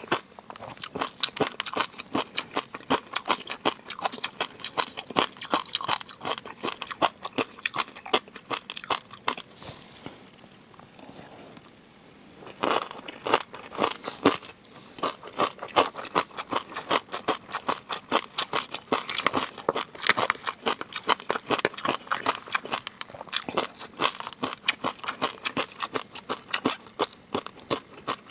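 Close-miked eating: rapid, wet crunching and chewing of food in the mouth, pausing for about two seconds a little past a third of the way through, then resuming.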